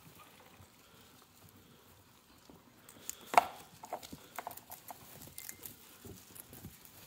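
Guinea pigs rustling in hay and tugging and chewing at a hand-held bunch of leafy greens, with quick crunchy clicks. A sharp rustle comes about three seconds in, after a quiet start.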